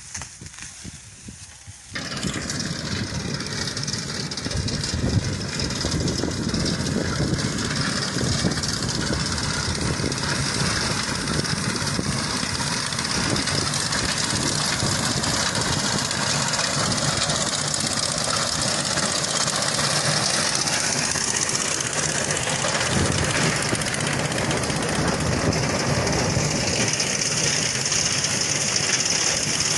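A motor engine running steadily, coming in suddenly about two seconds in.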